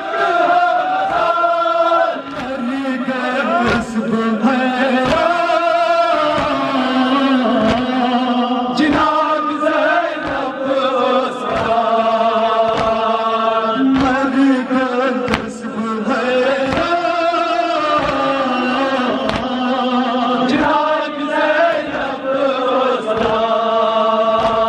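A man's amplified voice chanting a Kashmiri noha, a mourning lament, through a microphone. Under it runs a steady beat of thuds, about two a second, from mourners striking their chests in matam.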